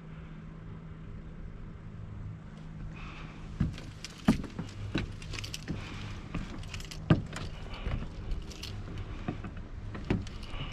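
Metal clinking and knocking against a steel lattice antenna tower: a run of sharp, irregular clinks from about three seconds in, after a few seconds of steady low hum.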